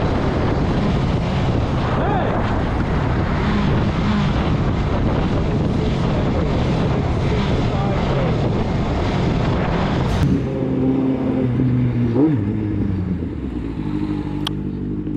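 Motorcycle riding at highway speed, its engine running under heavy wind rush on the helmet microphone. About ten seconds in it cuts to a quieter motorcycle engine idling steadily at a standstill, with a brief rev about two seconds later.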